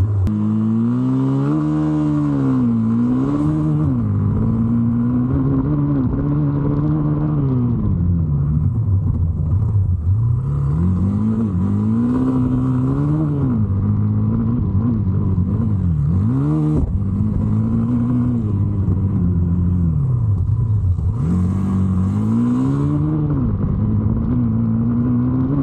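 Hero Xpulse 200's single-cylinder four-stroke engine ridden hard off-road, revving up and dropping back again and again as the rider opens and shuts the throttle and shifts.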